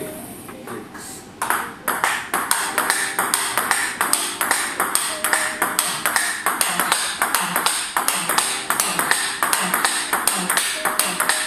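Table tennis rally of backhand topspin drives: a quick, even run of sharp clicks as the ball strikes bats faced with Tibhar Hybrid K3-series rubber and bounces on the table. It starts about a second and a half in.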